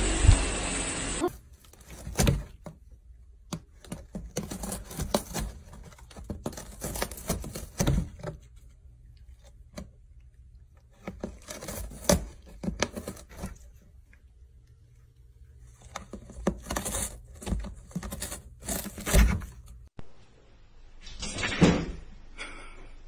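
Scattered thumps, knocks and rustling in short bursts separated by quiet gaps, as cats play and scuffle in a room.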